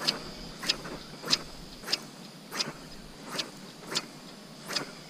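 Legs wading through shallow water, a short splashing swish with each step, eight in a steady rhythm of about one every two-thirds of a second.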